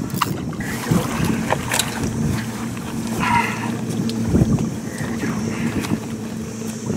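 Wind buffeting the microphone on a small fishing boat over a steady low mechanical hum, with a few sharp knocks and rattles as a red drum is brought into a landing net.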